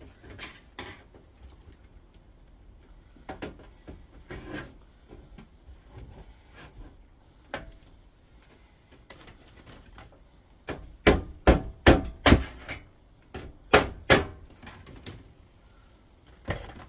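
Sharp knocks and taps of a tool striking and prying at plastic on an induction hob's steel back plate, with a quick run of about six hard strikes a little past the middle and two more soon after.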